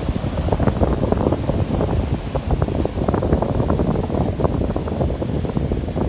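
Wind buffeting the microphone in a strong, gusty rumble, over the rush of breaking ocean surf.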